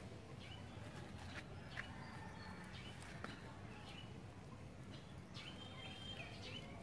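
Faint outdoor ambience: a low steady rumble with short, high chirps scattered through it and a held chirping call about five and a half seconds in.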